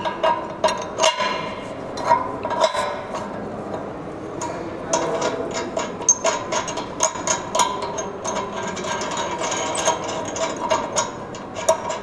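Irregular metallic clicks, clinks and scraping as the carbide tray of a calcium carbide acetylene generator is locked back in place and its two side nuts are tightened by hand. The nuts are tightened to keep the acetylene from leaking. A faint steady hum runs underneath.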